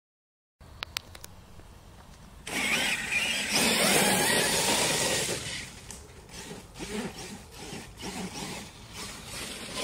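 Kyosho Mad Force VE brushless electric RC monster truck driving over leaf-covered dirt. Its motor and tyres are loudest for a few seconds from about two and a half seconds in, then quieter and uneven as it moves off. It is running in two-wheel drive because of a broken drive shaft.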